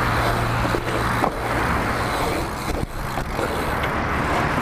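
BMX bike rolling fast over asphalt: steady tyre and wind noise, with a couple of short knocks from the bike about a second in and near three seconds.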